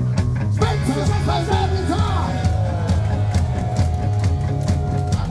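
Live punk rock band playing loud: drum kit, electric guitars and bass, with sung or shouted vocals and a single note held for a couple of seconds near the end.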